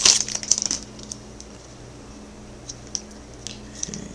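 Foil wrapper of a 2010 Bowman baseball card pack crinkling briefly, then scattered light clicks and ticks as the cards are handled.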